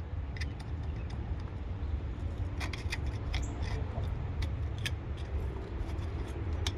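Scattered light clicks and taps, about a dozen, over a steady low rumble.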